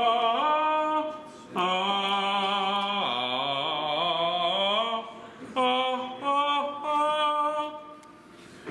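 A man singing a wordless tune in long held notes that step up and down in pitch, in three phrases with short breaks between them.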